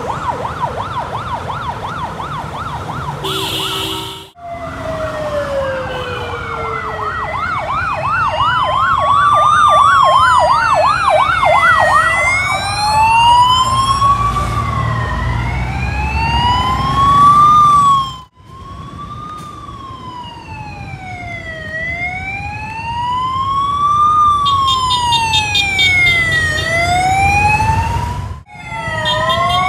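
Police escort sirens: a slow rising-and-falling wail, overlapped in the first half by a fast warbling yelp, over the low rumble of traffic. The sound breaks off abruptly three times.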